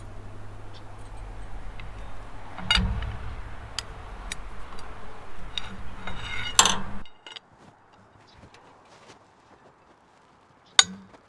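A wrench working on a seized steel Ferris wheel hub: several sharp metallic clinks and knocks over a steady low hum. The hum stops abruptly about seven seconds in, and a single sharp click follows near the end.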